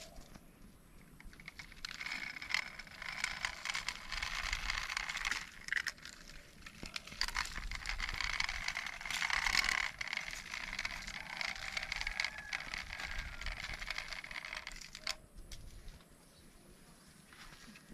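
Steady whirring with rapid plastic clicking and rattling, like a small toy mechanism running. It starts about two seconds in and stops about fifteen seconds in.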